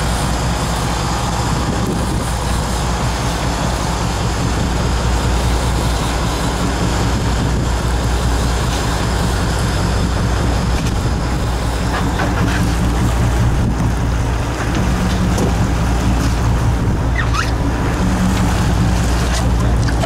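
Charter fishing boat's engine running steadily, with wind on the microphone and the sea washing around the hull.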